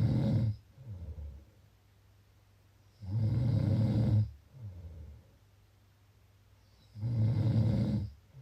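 A person snoring in slow, regular breaths, a loud rough snore about every four seconds, each followed by a shorter, quieter breath.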